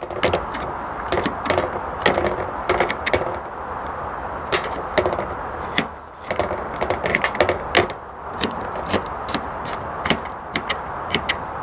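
Knife rough-chopping garlic on a wooden chopping board: quick, irregular knocks of the blade against the board.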